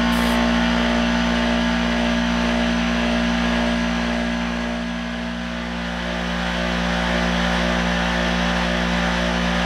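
Air compressor motor running steadily with a constant low hum, refilling after spray-gun use, under the blowing of a heat gun drying the fresh paint.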